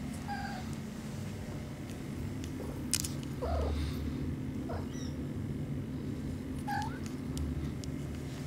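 Young kittens mewing: three short, high mews a few seconds apart, over a steady low hum, with a single sharp click about three seconds in.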